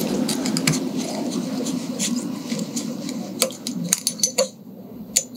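Small, sharp clicks and ticks of a fly hook, thread and tools being handled at a rotary fly-tying vise, over a low rustling that fades after about three seconds; the clicks come thicker near the end.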